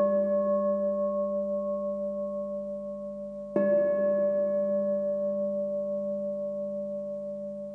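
A bell-like metallic tone rings and slowly fades with a gentle wobble. It is struck again about three and a half seconds in and rings out the same way, as the opening of intro music.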